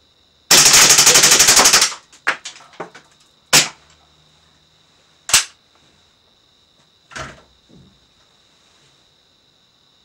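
Cybergun Desert Eagle CO2 airsoft pistol firing one full-auto burst of about a second and a half, a rapid rattle of shots. A few separate sharp clicks and knocks follow.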